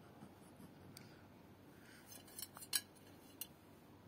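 Faint, sharp clicks of a small dog's claws tapping on a glass bathroom scale: a few scattered taps, with several close together just after two seconds in.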